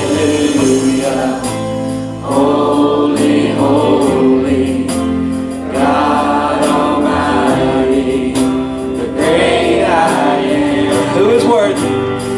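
Gospel worship song: a choir singing over instrumental backing, with a steady percussion beat.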